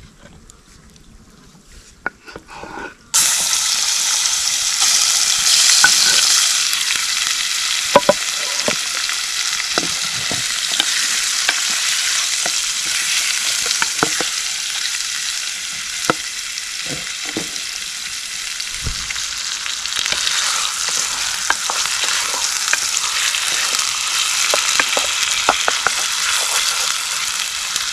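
Food sizzling loudly in hot fat, starting suddenly about three seconds in, with occasional clicks and knocks of a utensil.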